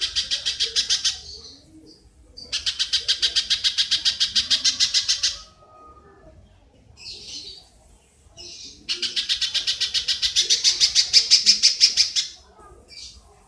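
Rapid chattering call of a small animal: sharp notes about ten a second, in three bouts of one to three and a half seconds, with a few short fainter calls in the gaps.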